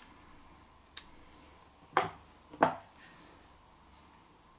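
Small hard-plastic camera gear being handled: a faint tick, then two sharp clicks about two thirds of a second apart.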